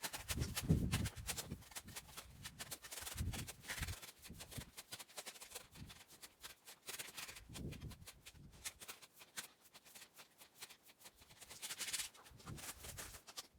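Irregular crunching and shuffling in deep snow with a few soft thumps: a person moving about and working in the snow.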